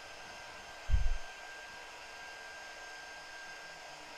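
Handheld hot-air dryer blowing steadily, a rush of air with a faint steady whine, drying freshly applied chalk paste. A short low thump about a second in.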